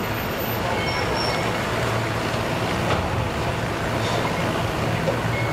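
Steady low rumble of idling engines under a broad, even hiss.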